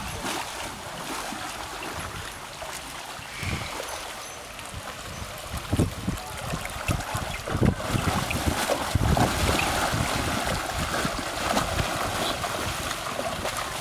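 Water splashing and running steadily as cattle are washed, getting busier about halfway through, with irregular low rumbling gusts.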